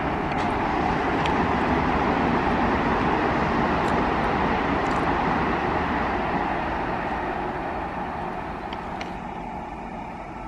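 Freight train of covered wagons rolling past on the track: a steady rumble and rattle of wheels on rail with a few faint ticks, fading gradually over the last few seconds.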